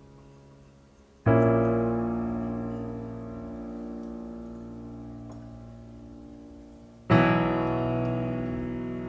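Background piano music: slow, sustained chords, one struck about a second in and another near the end, each ringing and slowly fading.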